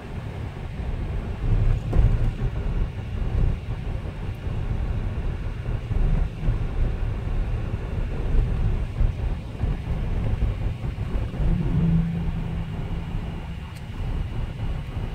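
Jeep Wrangler JK driving, heard from inside the cabin: a steady low rumble of engine and road noise.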